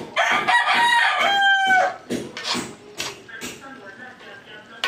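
A rooster crows once: one long call of a little under two seconds that falls in pitch at the end. Several short, sharp knocks follow.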